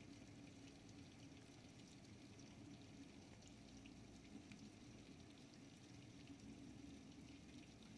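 Faint, steady monsoon rain falling, with scattered small ticks of drops.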